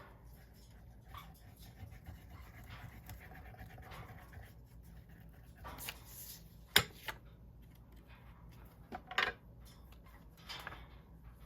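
Paper and craft tools being handled on a work table: soft rustling and scraping, with a sharp tap about seven seconds in and a few brief scrapes near the end.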